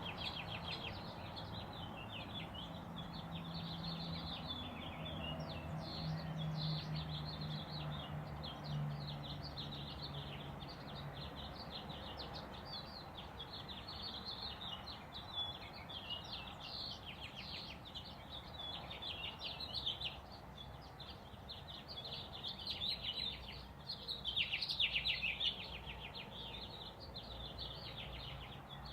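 Dawn chorus of many songbirds singing at once: a dense, busy mix of overlapping chirps and quick trills. A faint low drone sits underneath from about four to eleven seconds in.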